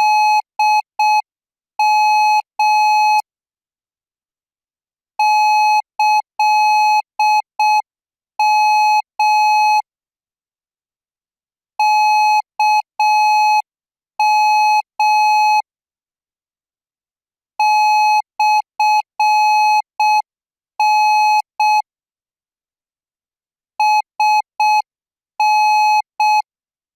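Morse code practice signal in Thai Morse at 10 words per minute: one steady beeping tone keyed in short dots and longer dashes, sent in five bunches with pauses of about two seconds between them.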